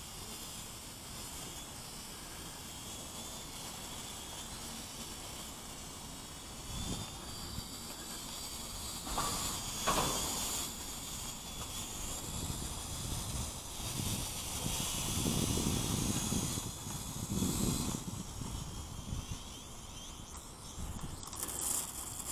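Wind buffeting the microphone over a steady hiss, with stronger gusts about nine seconds in and again around fifteen to eighteen seconds.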